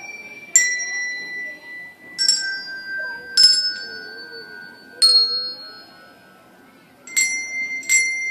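Colour-coded handbells rung one at a time as a slow tune: six notes at different pitches, about a second or more apart, each ringing on and slowly fading.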